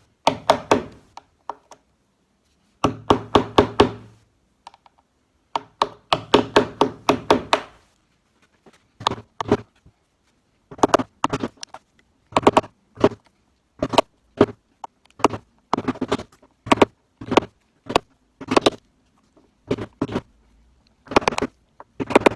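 Hammer tapping a small slotted screwdriver to chip old, thick paint out of a hinge screw's slot: bursts of quick light taps at first, then steadier single taps about two a second.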